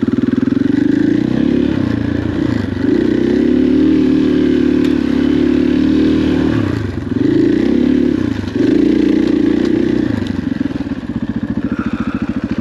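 KTM 500 EXC single-cylinder four-stroke dirt bike engine under way on a trail, its revs rising and falling with the throttle. The revs dip briefly twice about two-thirds of the way through, then it settles to a lower, steadier putter near the end. The clutch is hot and dragging a little, so the bike pulls sluggishly.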